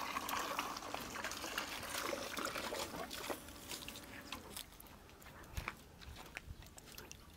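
Liquid trickling and sloshing, fading out after about four and a half seconds, followed by faint scattered small clicks.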